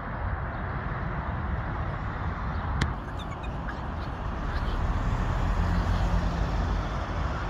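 A car passing on a road, its sound swelling from about five seconds in over a steady outdoor rumble, with one sharp click just before three seconds in.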